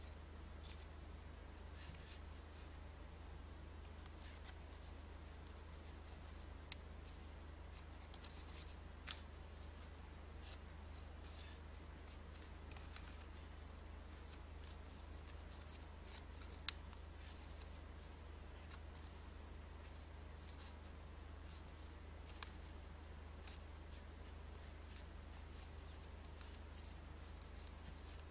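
A 2000-ruble banknote being folded and creased by hand: scattered crisp paper rustles and crinkles with a few sharp ticks, over a low steady hum.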